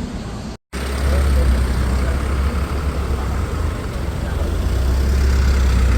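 A steady low rumble of a running vehicle engine with noise around it, starting after a brief drop-out about half a second in.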